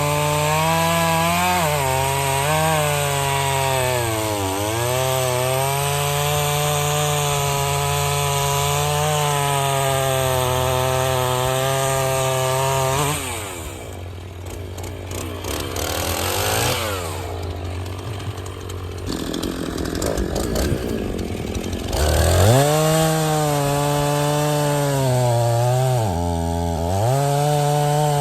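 Chainsaw running at high revs through cuts, its pitch sagging as it bogs down in the wood a few seconds in and again near the end. Partway through it falls back to a lower, rougher sound for several seconds, then revs up again.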